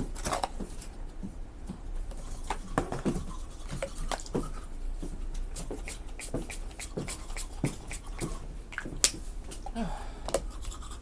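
Small clicks, taps and rustles of skincare bottles and a cardboard box being handled on a table, scattered irregularly throughout.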